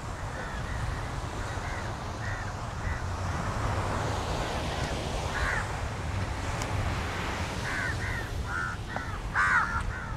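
Crows cawing in short repeated calls, loudest about halfway through and near the end, over a steady background rush.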